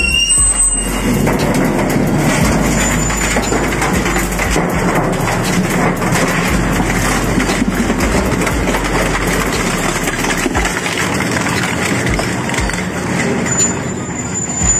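Heavy crushing machine running under load: a steady mechanical din with frequent short cracks and crunches, and a low drone that cuts in and out.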